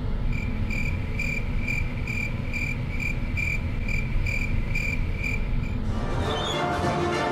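Cricket chirping in an even rhythm of about two chirps a second, each chirp a single high note, stopping abruptly about six seconds in, over a steady low hum.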